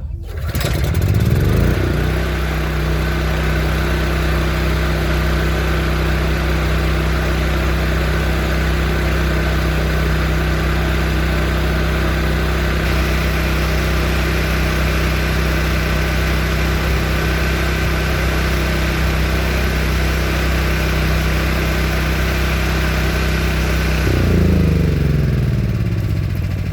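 DeWalt DXGN7200 portable generator's engine catching and revving up to its steady governed speed over about two seconds, then running steadily. Near the end its pitch drops as the engine slows.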